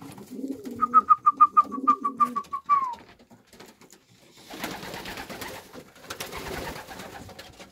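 Racing pigeons cooing in the loft for the first couple of seconds, with a quick run of about a dozen high, evenly spaced chirps over it that ends in a falling note. From about four and a half seconds in comes a dry rustling and rattling as the pigeon feed mix is handled.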